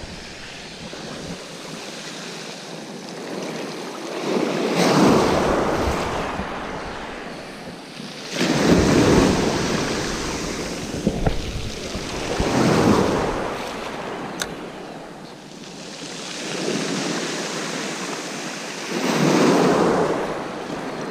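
Waves breaking on the beach, a surge of surf every few seconds that rises and falls away, over a steady wash of sea noise.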